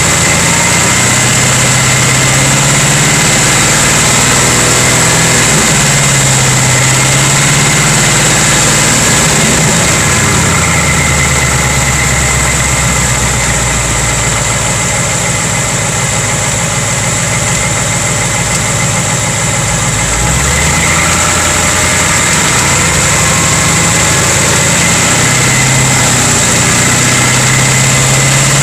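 2018 Ford Mustang GT's 5.0-litre V8 idling, heard from underneath the car, its note shifting for a stretch in the middle. It carries a clanking noise that the owner wonders may be piston slap.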